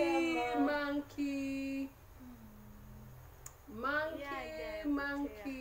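A woman singing a tune in short phrases with long held notes, dropping to a soft hum for about two seconds in the middle before singing again.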